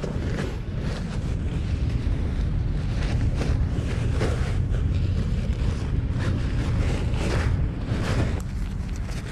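Wind buffeting the camera microphone as a steady low rumble, with irregular rustling and handling noises from gear being moved about every second or so.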